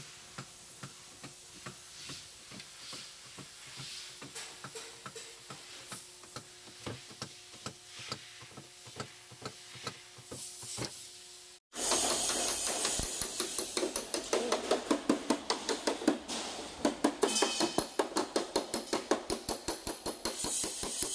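Panel beating on a car's sheet-metal body: a metal hammer and flat dent tool striking the panel to work out accident dents. Light, scattered taps at first, then after a sudden change about halfway, rapid, louder tapping at several strikes a second.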